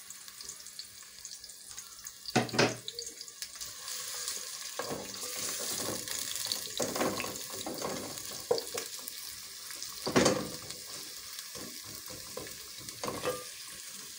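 Diced red onions sizzling in hot oil in a metal sufuria, stirred with a wooden spoon that knocks and scrapes against the pot, loudest about two and a half seconds in and again about ten seconds in.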